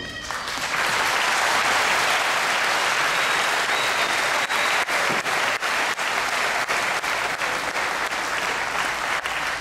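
Audience applauding, building up within the first second and starting to die down near the end.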